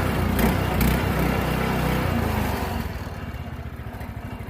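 Subaru small engine on a sawmill running loud, then dropping to a quieter, lower run about three seconds in. It is running with the choke cracked a little to keep it going, which the owner takes as a sign of a bad spark plug or fuel clogging the carburettor.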